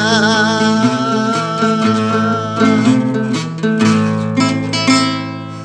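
Acoustic guitar plucked and strummed through a song's closing bars, with a man's voice holding a last wavering sung note at the start. A final strum near the end rings out and fades.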